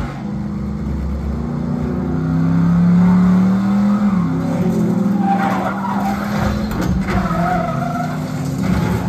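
Film soundtrack of a car race: racing car engines running hard, with the pitch dropping once about four seconds in, and tires squealing in the second half.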